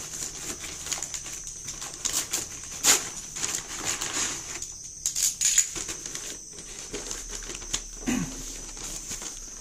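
Brown paper parcel bag being torn open and crumpled by hand, irregular rustling and crackling with two sharper tearing spikes a few seconds apart, as a box is worked out of it.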